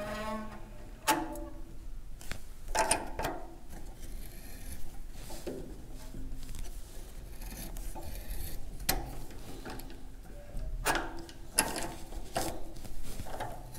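Tap being turned by hand with a T-handle tap wrench, cutting threads into a cast iron radiator tank for a thread-repair insert: scattered clicks and scraping as the wrench is worked around in short turns.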